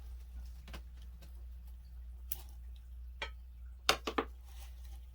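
Scattered sharp clicks and taps from small objects being handled, three in quick succession about four seconds in, over a low steady hum.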